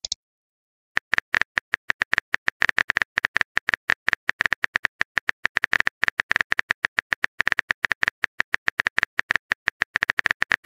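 Rapid, irregular clicks of a phone keyboard typing sound effect, about eight to ten taps a second, starting about a second in.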